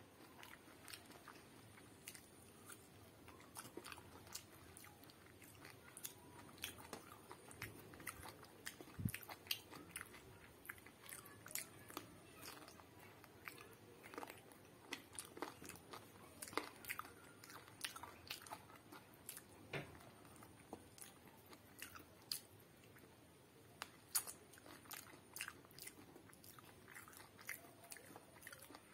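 Faint close-up eating sounds: chewing and wet mouth smacks as chicken curry and khichdi are eaten by hand, with fingers squishing the food. Many short, irregular clicks throughout.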